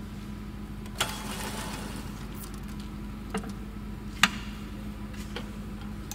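Sharp metal clicks and clunks from a centre lathe's hand controls being worked: four in all, the loudest a little past four seconds as a headstock lever is moved, the first followed by a brief hiss. A steady low hum runs underneath.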